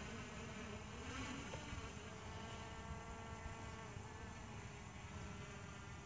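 Faint, steady buzzing whine of the MJX Bugs 2 B2W quadcopter's motors and propellers in flight, its pitch shifting slightly as it manoeuvres.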